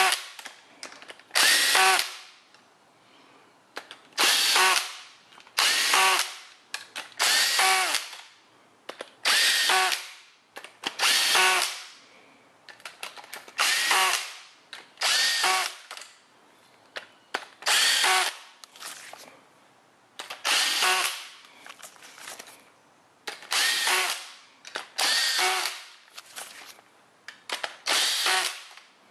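Cordless drill running cylinder head bolts down snug one after another. There is a short whir for each bolt, about sixteen in all, with brief pauses between them.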